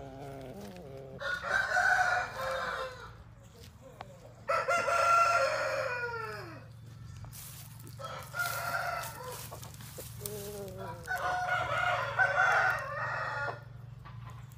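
Roosters crowing, about four long crows one after another, some ending in a falling tail.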